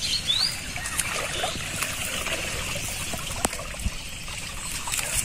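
Shallow pond water trickling and splashing as a person wades and works among water hyacinth, with many small scattered clicks and ticks.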